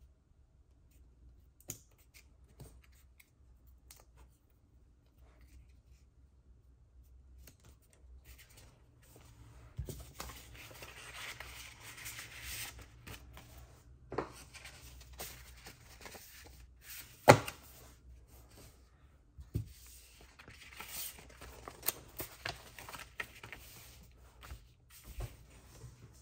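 Paper-crafting handling sounds: paper and card stock rustling and being worked, with scattered light clicks and taps of tools and pieces being set down. The first third is mostly quiet, the rustling picks up after that, and there is one sharper knock about two-thirds of the way through.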